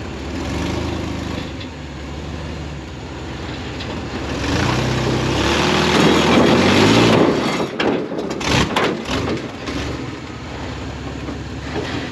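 Vehicle engine running at idle, its revs climbing and getting louder about four seconds in, then dropping back sharply near seven and a half seconds, followed by a few sharp knocks before it settles to idle again.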